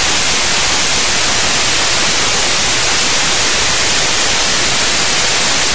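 Loud, steady static hiss like white noise, even and unchanging, with no music or voice in it.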